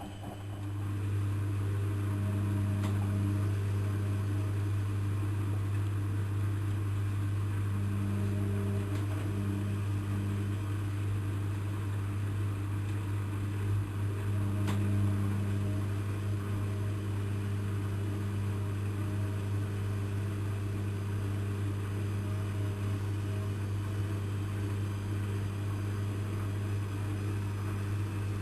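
Lloyds 825 washing machine's drain pump starting up and running with a steady low hum. The hum swells in the first second, then holds at one pitch.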